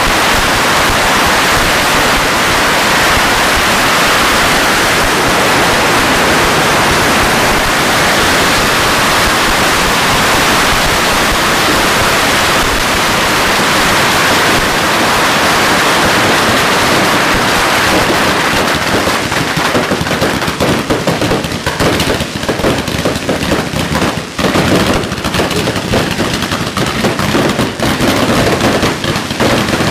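Beehive fireworks barrage: massed bottle rockets firing at once make a dense, continuous hissing rush. After about eighteen seconds it breaks up into rapid crackling bangs of fireworks and firecrackers going off.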